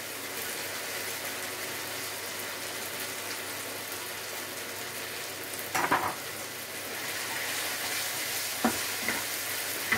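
Minced beef chilli with peppers and tomato sizzling steadily in a frying pan. A wooden spoon stirring it knocks against the pan a few times about six seconds in, and twice more near the end.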